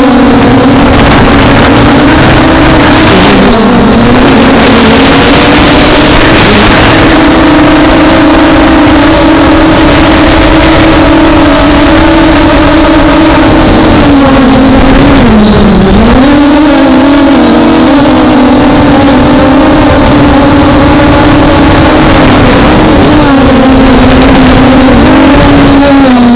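MJX Bugs 5W quadcopter's brushless motors and propellers humming at a steady pitch, dipping briefly twice, over heavy wind noise.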